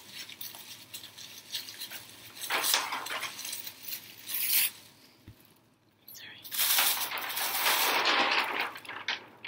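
Plastic bags crinkling and rustling as a braided plastic-bag bowl is unwrapped by hand. The sound comes in irregular bursts, with a longer, louder stretch in the last few seconds.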